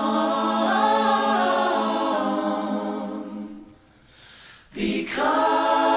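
Choir singing a cappella, holding a chord on the word 'on' that fades away about three and a half seconds in; after a brief pause the voices come back in together.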